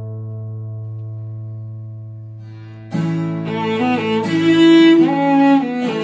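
A low chord rings and slowly fades, then about three seconds in bowed strings come in, a cello among them, playing a melody.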